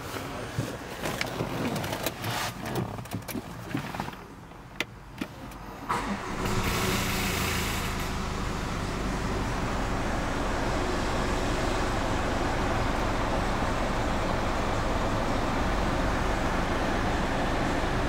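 A few sharp clicks and knocks, then about six seconds in a Land Rover Discovery Sport's four-cylinder diesel engine is started by push button. It cranks and catches for about two seconds, then settles into a steady idle.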